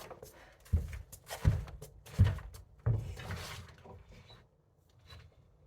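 Four knocks and thuds about 0.7 s apart from a heavy timber being hauled up with a rope and makeshift pulley, followed by fainter scraping and creaking as the load settles.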